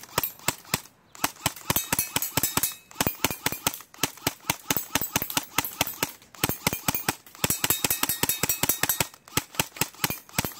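Swiss Arms SIG 552 airsoft rifle fired in semi-auto: rapid single shots, about four or five a second, in quick strings with brief pauses near the start and near the end. Now and then a pellet rings off a steel target.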